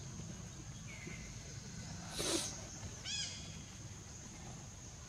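Animal sounds over a steady high insect drone: a brief harsh noise a little after two seconds in, then a short high squeaking call that rises and falls about a second later.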